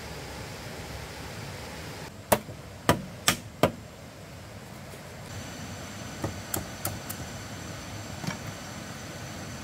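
Hammering: four sharp knocks in quick succession a little over two seconds in, then a few lighter knocks later on, over a steady background hiss.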